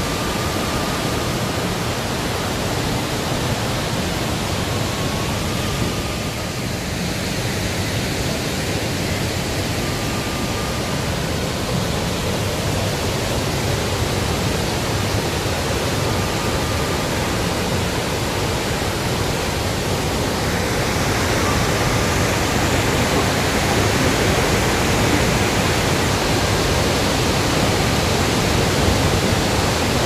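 Bou Sra waterfall's water rushing down in heavy flow: a steady, loud rush of falling water that grows a little fuller about two-thirds of the way through.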